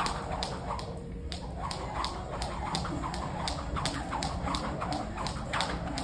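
Jump rope slapping the floor in a steady rhythm, about three taps a second, with high squeaks along with the swings, over a steady low hum.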